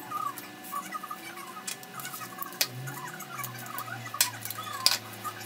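Stiff cardstock being handled, folded and creased by hand, giving scattered light clicks and rustles, with a faint steady low hum from about halfway in.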